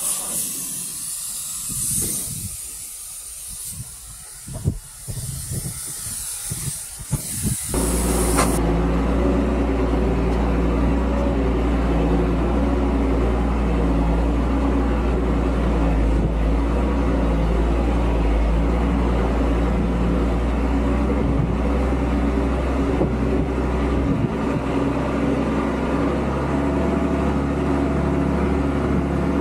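A steady high hiss with low irregular thumps, then, after about eight seconds, the Unimog U1300's six-cylinder diesel engine running steadily under way. Its low drone drops slightly about three quarters of the way through.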